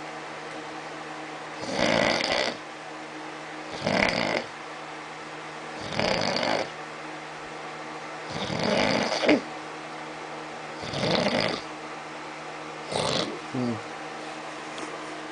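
A man snoring in his sleep, with a snore about every two seconds, six in all. The last one is broken into two short snorts.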